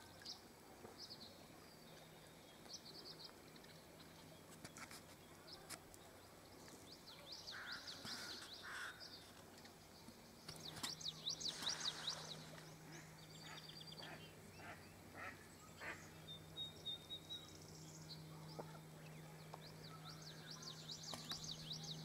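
Small birds singing and chirping: rapid trilled phrases and short high chirps, busiest about halfway through. A faint steady low hum sets in about halfway.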